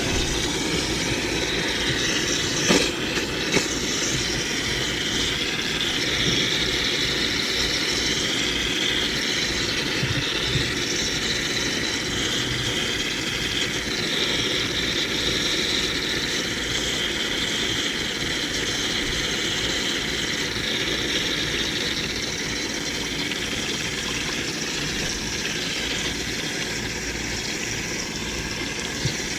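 Garden hose spraying cold water steadily onto the hot shell of an air-conditioner compressor, a continuous hiss of water. The water is cooling an overheated compressor whose motor windings read open, so they close again.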